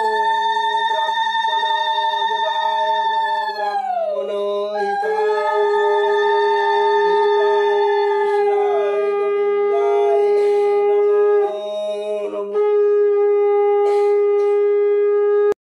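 Conch shell (shankha) blown in long held blasts, each dropping in pitch as the breath runs out, with a brief break before the last blast, which cuts off suddenly near the end.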